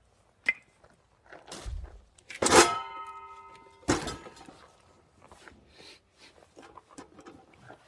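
Handling of firewood and metal gear: a sharp knock, then a loud metallic clang that rings on for about a second and a half, then another hard knock, followed by light clatter and rustling.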